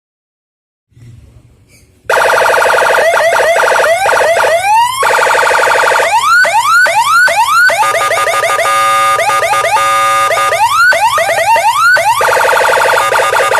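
Senken BM electronic siren sounding through a TOA 15-watt horn speaker. It comes on loud about two seconds in, after a brief low hum. It then switches between tone modes: stretches of steady pulsing tones and quick rising whoops, several a second.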